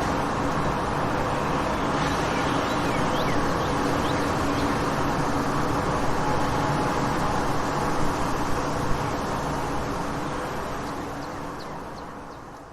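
Daytime city street ambience: a steady wash of road traffic noise, with a few short high chirps over it. It fades out near the end.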